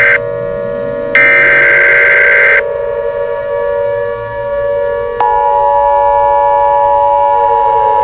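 Emergency Alert System tones over a steady siren-like wail that winds up at the start. The loud, screechy EAS data burst at the start cuts off almost at once, and a second one about a second in lasts about a second and a half. About five seconds in, a steady two-tone alert tone comes in and holds.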